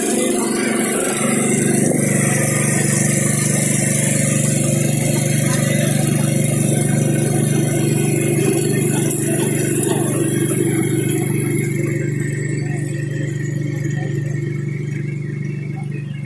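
BCS walk-behind power tiller's small single-cylinder engine running steadily under load as its rotor churns through dry soil. The engine note picks up slightly a second or two in, and the sound eases off a little near the end.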